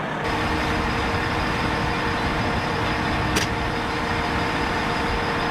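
Idling heavy-vehicle engines, a steady unchanging hum, with one sharp click about three and a half seconds in.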